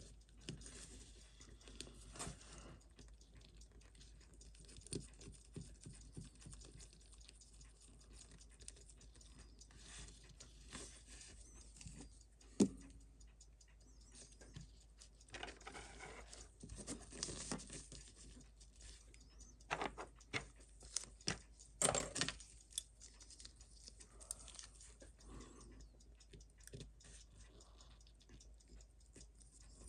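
Faint, scattered clicks, taps and rustles of small watchmaker's tools and parts being handled on a bench, with a few sharper taps near the middle and about two-thirds of the way through.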